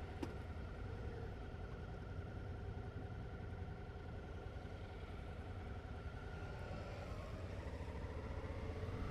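Motorcycle engine idling steadily: a low rumble with a faint steady whine above it.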